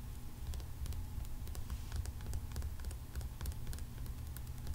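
Long fingernails tapping and clicking on a hard dragon figurine: quick, irregular light taps, several a second, over a steady low hum of recording noise.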